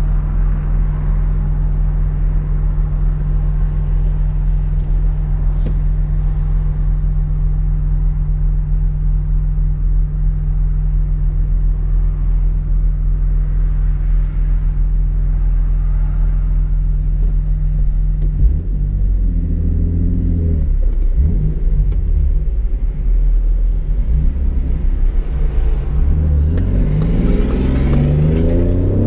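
Mk4 Toyota Supra's straight-six engine heard from inside the cabin, idling steadily at first. About two-thirds of the way through the revs begin to rise and fall as the car pulls away, with repeated climbs in pitch near the end as it accelerates through the gears.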